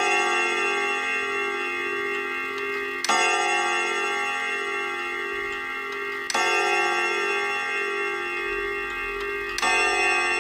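1970s Silco chime wall clock's hammers striking its steel chime rods, one strike about every three seconds, each one ringing on until the next: the slow, evenly spaced count of the hour.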